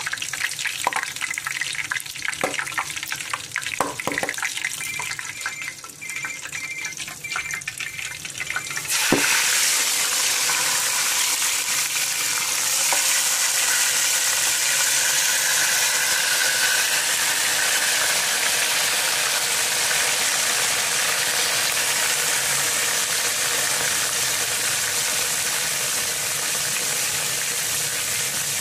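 Hot oil in a pot crackling with scattered pops. About nine seconds in, chicken pieces go into the oil and a loud, steady deep-frying sizzle takes over and holds.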